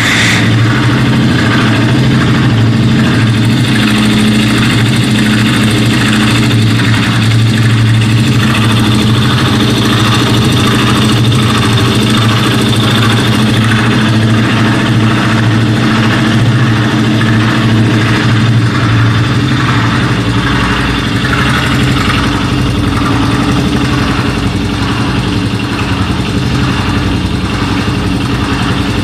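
Suzuki Djebel 200's air-cooled single-cylinder four-stroke engine idling steadily, with a regular tick running through the idle. This is the abnormal engine noise whose cause the owner does not know.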